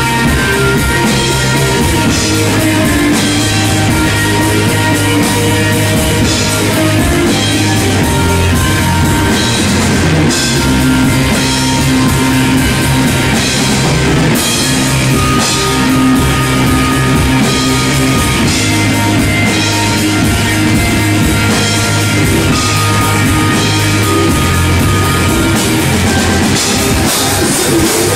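Stoner rock band playing live: electric guitars and bass over a drum kit keeping a steady beat, loud throughout.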